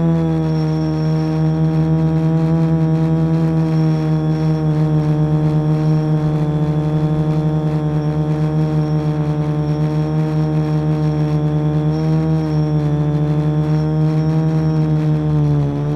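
Quadcopter's electric motors and propellers humming steadily as it hovers, heard close from the camera on board. The pitch wavers slightly with small throttle corrections and dips briefly near the end.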